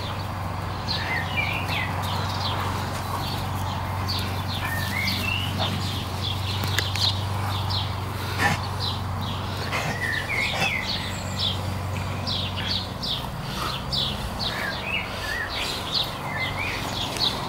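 Small birds chirping and twittering, many short high notes and little wavering calls, over a steady low hum.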